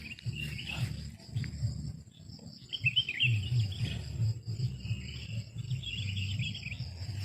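Birds chirping in quick twittering bursts that come and go every few seconds, over a low rumbling noise.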